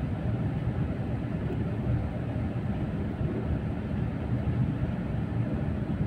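Steady low rumble of a moving road vehicle heard from inside the cabin: engine and road noise while travelling at speed.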